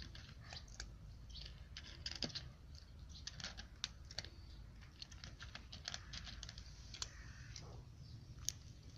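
A cat crunching dry kibble: faint, irregular crisp crunches, several a second.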